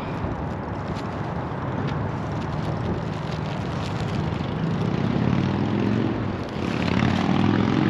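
Low engine hum of a passing vehicle over a steady outdoor rumble, growing louder in the second half, with faint rustling and clicks of packing being handled.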